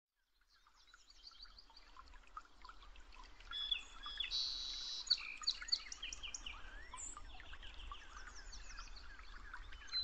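Many small songbirds chirping and singing together, fading in over the first few seconds into a busy, overlapping chorus, over a faint low rumble.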